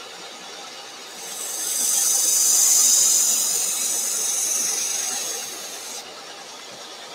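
Belt grinder running with a worn 120-grit ceramic belt. From about a second in, a steel knife blade is pressed against the slack belt to cut the edge bevel: a high hiss that swells, then fades and stops near six seconds, leaving the machine running.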